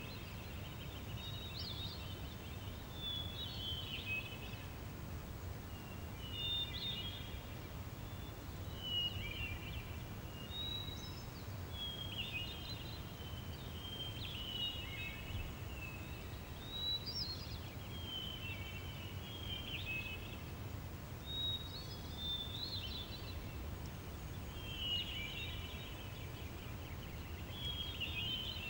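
Meadow ambience: a songbird repeating short, quick warbled phrases every two to three seconds over a steady low rumble.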